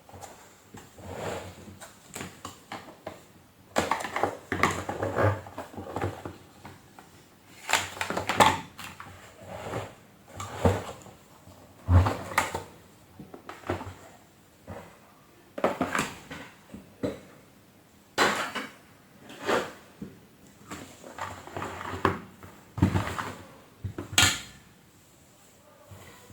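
Hand-handling of a vacuum cleaner's plastic housing and parts during disassembly: irregular clicks, knocks and short clattering rattles every second or two.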